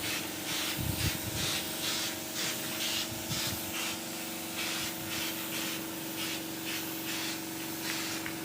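Rhythmic rubbing strokes of primer being applied to a folding door, about two a second, over a steady low hum.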